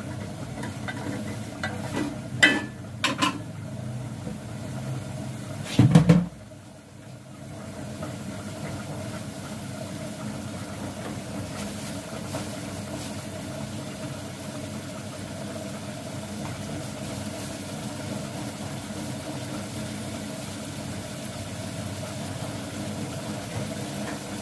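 Meat frying in a pot on a gas stove, with a steady sizzling and burner noise. A metal spoon clinks twice against the pot about two and three seconds in, and a louder metal clatter comes about six seconds in.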